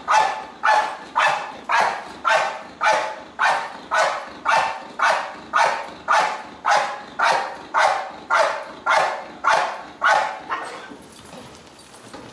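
A protection-training dog on a leash barking at a helper who holds a bite pillow. About two barks a second, in an even run of some twenty barks that stops near the end.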